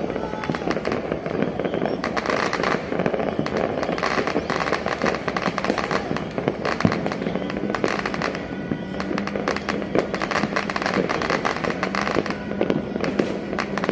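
Many firecrackers and fireworks going off at once across a city for New Year: a dense, continuous crackle of pops and bangs. A steady low droning tone runs underneath through the second half.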